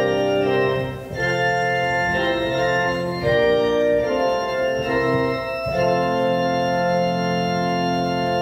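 Organ playing slow held chords, changing every couple of seconds, as the prelude music of a church service.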